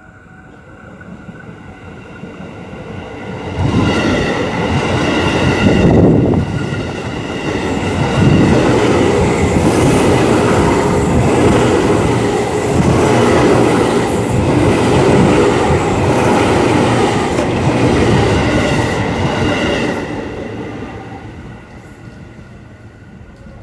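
Electric commuter train passing close by on the track: the noise builds over a few seconds, holds as a long, loud rush of wheels running on the rails, and fades away near the end.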